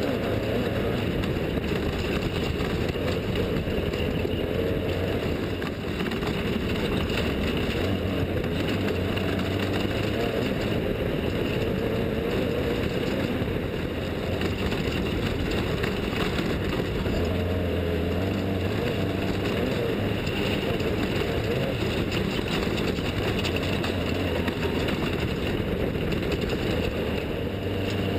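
Off-road desert race vehicle engines running, a steady engine sound with no sharp events.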